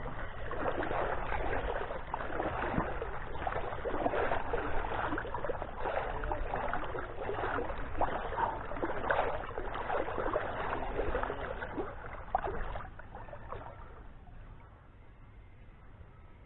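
River water splashing and churning, a dense crackling wash that dies down about 13 seconds in.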